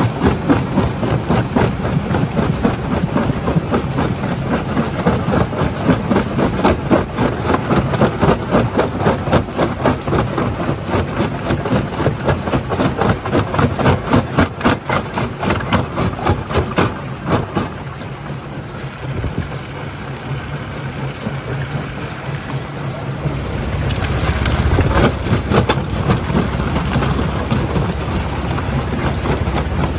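Rock-crushing plant with a primary jaw crusher running: a loud, rapid, even rattle of knocks that eases about two-thirds of the way through, giving way to a deeper rumble near the end.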